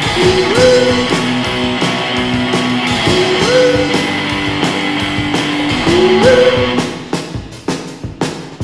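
Rock music led by guitar: a repeated phrase with upward-bent notes coming round about every three seconds, growing sparser near the end with a few sharp hits.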